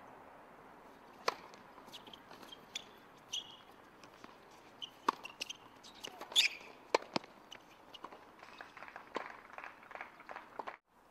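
Scattered sharp taps and knocks on a hard tennis court: a ball bouncing and struck by a racket, with a player's footsteps. The loudest knock comes about six and a half seconds in, and a quick run of smaller taps follows near the end.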